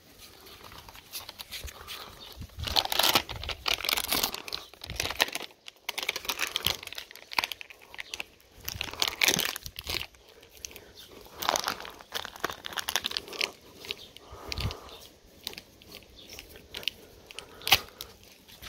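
Plastic snack packet crinkling and crackling in irregular bursts as a dog bites, chews and tugs at it.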